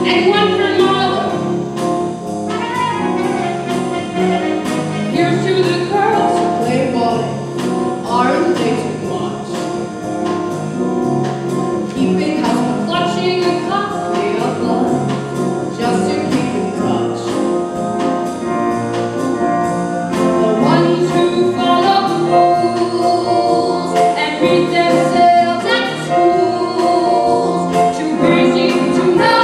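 A woman singing a solo Broadway show tune over instrumental accompaniment with brass, growing somewhat louder about two-thirds of the way through.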